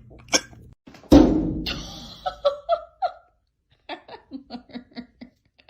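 A sudden loud thump about a second in that fades away over about a second, followed by a person laughing in short rapid bursts.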